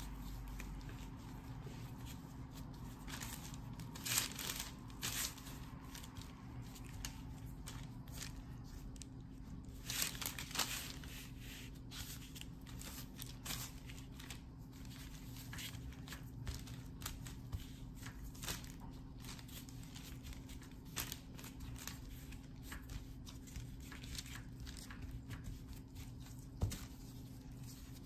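Crumbly scone dough being pressed and patted together by hands in plastic gloves on parchment paper: scattered rustling and crinkling of the paper and gloves, with a few sharper scrapes and taps, over a steady low hum.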